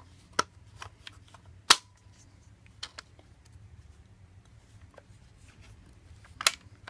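Kel-Tec RFB rifle being handled while its takedown pins are lined up: a few scattered clicks and knocks of its polymer stock and parts, two sharper ones about two seconds in and near the end.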